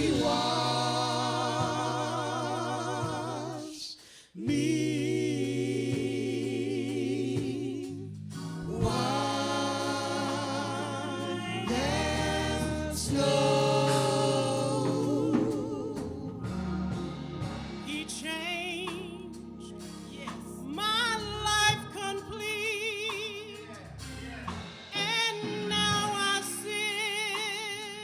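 Gospel singers performing a slow song with long held, wavering vocal notes over sustained low accompaniment, with a brief break about four seconds in.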